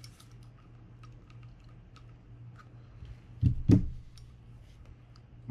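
Light clicks of small metal reel parts and a hand driver being worked during disassembly of a Daiwa BG90 spinning reel. About three and a half seconds in come two louder knocks as parts are set down on the work table.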